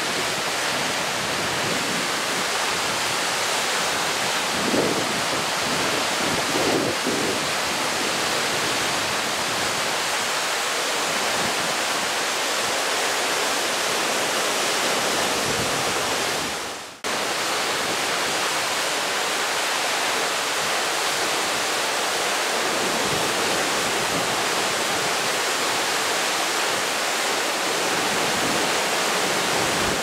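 Tall waterfall plunging into a rocky gorge: a steady, loud rush of falling water, with a brief drop-out about seventeen seconds in.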